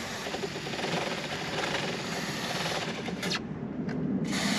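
Aerosol chain wax hissing as it is sprayed onto a motorcycle chain, pausing for about a second near the end before the spray starts again. Underneath, the chain ticks quickly over the rear sprocket as the raised rear wheel turns.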